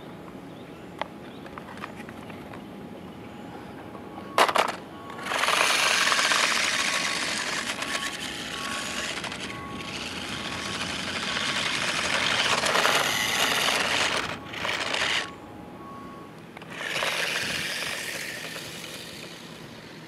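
Battery-powered toy remote-control car driving over rough asphalt: its small electric motor and plastic tyres make a hissing rattle that starts after a sharp knock about four seconds in. The noise runs in two long bursts with a short pause between them.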